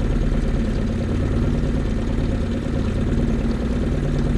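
Small outboard motor running steadily at trolling speed: an even engine hum with no change in pitch.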